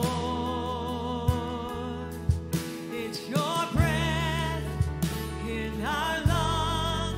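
Live worship band playing a contemporary worship song: a female and a male singer sing held lines with vibrato over acoustic guitar, bass guitar, keyboard and drums. A new sung phrase starts a little over three seconds in.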